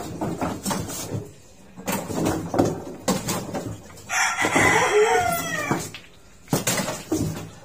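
A rooster crowing once, about four seconds in, a call of nearly two seconds.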